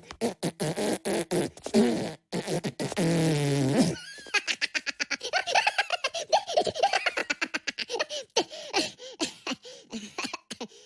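Cartoon Minions' fart noises and high-pitched giggling: quick sputtering farts, one long buzzy fart about three seconds in lasting about a second, then rapid bursts of laughter.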